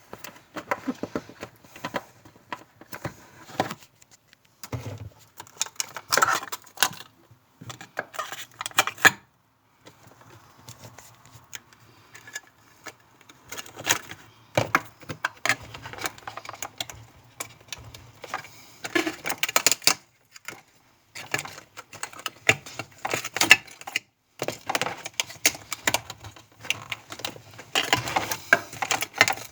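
Irregular clicking and rattling of small hard parts being handled and fitted during a refrigerator repair, in uneven spells with short pauses between them.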